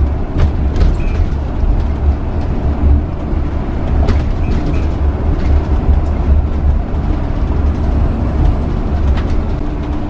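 Motorhome driving at a steady town-road speed, heard from inside the cab: a steady low rumble of engine and road noise, with a few light rattles.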